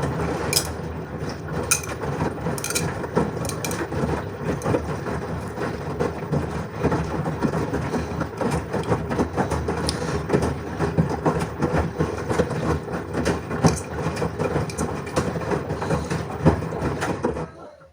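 LG washing machine running a wash, the drum turning with a steady rumble and many small knocks and clatters as the load tumbles. It starts and cuts off abruptly.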